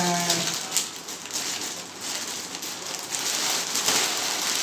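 Clear plastic packaging bag crinkling and rustling as a baby carrier is pulled out of it, in a dense run of crackles.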